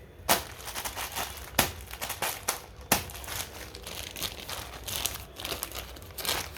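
Plastic packaging crinkling and tearing as a balloon pack is opened, with three sharp, loud snaps in the first three seconds among the continuous crackle.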